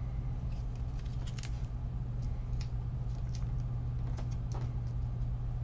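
Faint, scattered light clicks and taps at irregular intervals over a steady low hum.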